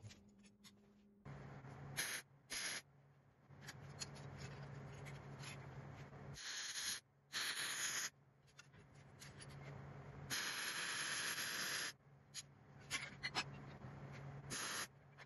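MIG welding on steel: a series of short welds, each a burst of crackling, sputtering arc noise, the longest about a second and a half, with a steady low hum underneath between welds.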